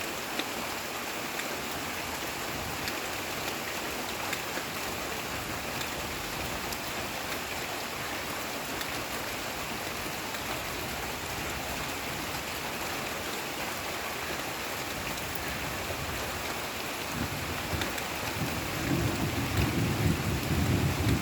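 Heavy rain falling steadily on banana leaves: a dense, even hiss with scattered drop ticks. About three-quarters of the way through, a low rumble of thunder builds and grows louder.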